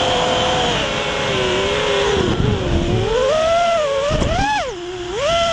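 Six-cell FPV quadcopter's motors and props whining, the pitch rising and falling with the throttle. The pitch dips sharply near the end as the throttle is backed off, with gusts of wind noise on the onboard camera's microphone.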